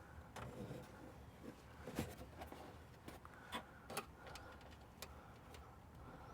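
Faint, scattered clicks and taps of a wire and plastic interior trim being handled as the cable is tucked in, a few sharp ticks spread irregularly over a low background hum.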